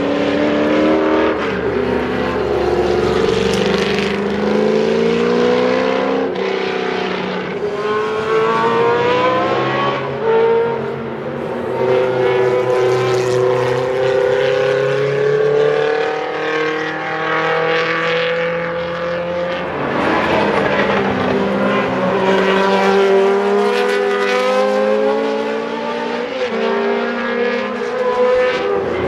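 Historic Can-Am race car engines running hard, several at once, their notes rising and falling as the cars accelerate and lift off through the corners.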